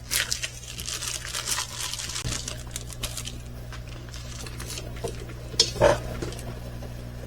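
Plastic packaging and a rolled diamond painting canvas rustling and crinkling as they are handled, busiest in the first few seconds, with two louder rustles about six seconds in.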